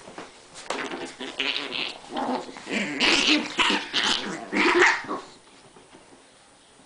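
Chihuahuas play-fighting, growling and snarling at each other in uneven bursts that grow louder, then die away about five seconds in.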